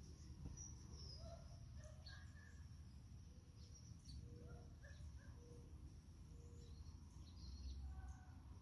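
Faint ambience: a low steady rumble with scattered faint, short bird chirps.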